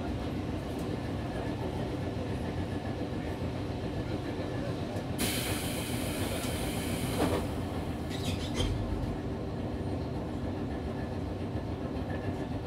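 Tobu 6050 series resistance-controlled electric motor car running on the rails: a steady rumble of wheels, TM-63B traction motors and gearing. About five seconds in a hiss rises over it for two seconds, with a short sharp sound just after.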